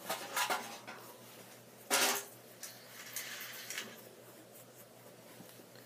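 Small toy cars handled and pushed over a tile floor: faint clicks and light scrapes, with one brief louder sound about two seconds in.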